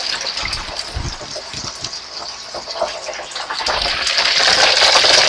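Hot oil in an electric deep fryer sizzling steadily around a basket of chicken wings, a dense hiss that grows louder near the end.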